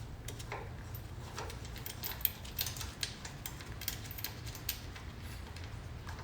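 Light metallic clicks and clinks of a wrench and socket ratchet working a bolt loose, scattered and irregular, thickest in the middle, over a low steady hum.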